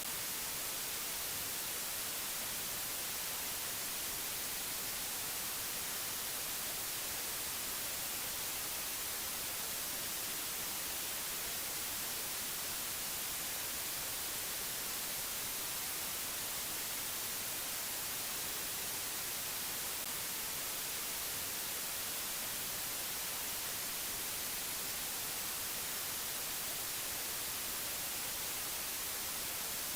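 Steady, unchanging hiss like static, brightest in the treble, with no tones, clicks or changes.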